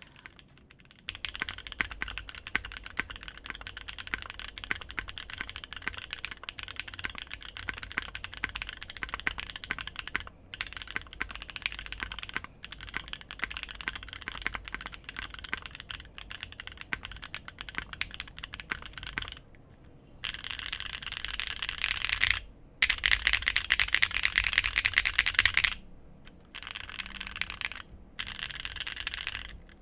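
Typing sound test on a mechanical keyboard with JWK-made Moyu Green Snake linear switches (65 g springs), an aluminium plate and GMK keycaps: rapid keystroke clacks, which the reviewer calls bright. The typing starts about a second in, stops briefly a few times, and is loudest and fastest a little past two-thirds of the way through.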